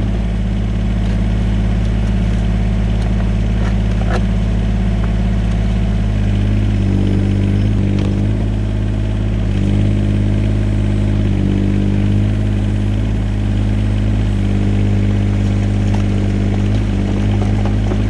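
Yanmar ViO17 mini excavator's small three-cylinder diesel engine running steadily. From about seven seconds in, a second, higher hum comes and goes over it.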